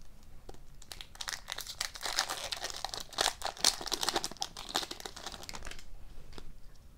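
Foil wrapper of a 2018-19 SP Authentic hockey card pack crinkling and tearing as it is ripped open by hand: a dense crackle of sharp crinkles from about a second in until near the end, then a couple of faint clicks.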